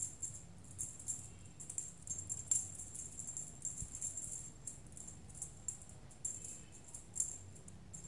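A small jingle bell being shaken in quick, irregular bursts of jingling, with sharper shakes about two and a half seconds in and again near the end.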